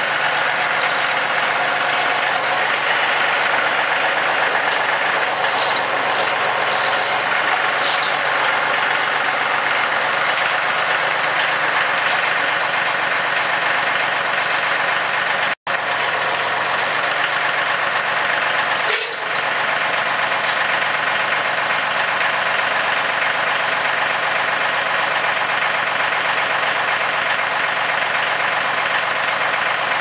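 John Deere compact tractor's diesel engine running steadily while its front loader lifts and rolls a heavy hickory log. The sound cuts out for an instant about halfway through.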